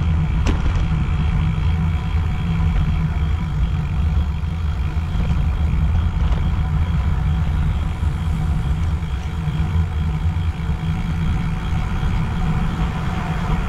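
Wind buffeting the microphone of a GoPro action camera on a moving bicycle, a steady low rumble that keeps wavering, with road and tyre noise underneath.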